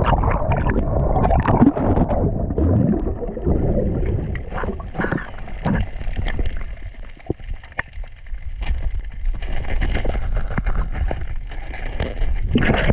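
Underwater audio from a diver's camera: a dull rumble of moving water with scattered clicks and crackles throughout, and gurgling bubbles in the first few seconds.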